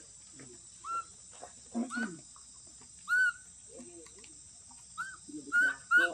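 Baby macaque giving short, high squeaky calls: a few spaced ones, then a quicker run near the end.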